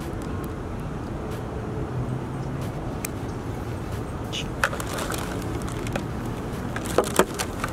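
Steady background traffic noise, with a few sharp handling clicks and knocks, the loudest two close together near the end, as a small shotgun microphone and its furry windshield are handled and fitted onto a camera.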